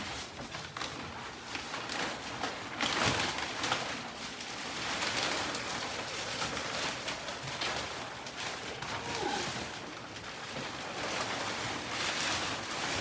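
Thick plastic mattress wrapping crinkling and rustling as it is pulled and peeled off a gel memory foam mattress.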